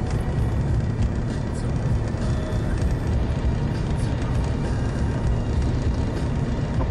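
Steady low rumble of a car's road and engine noise heard from inside the cabin while driving in the rain, with faint ticks of raindrops on the windshield.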